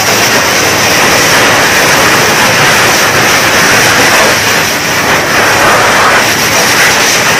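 Fire hose nozzle spraying a high-pressure water stream: a loud, steady rushing hiss.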